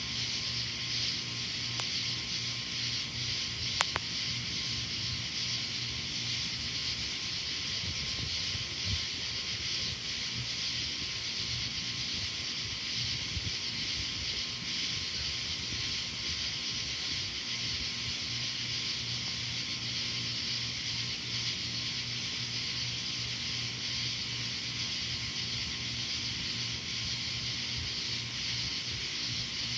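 Steady high-pitched hiss of outdoor night ambience during a thunderstorm, with a faint steady hum under it and one small click about four seconds in.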